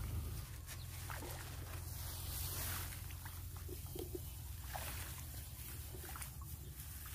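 Rice stalks rustling and brushing as they are pushed aside, over a steady low rumble of wind on the microphone, with a few faint ticks.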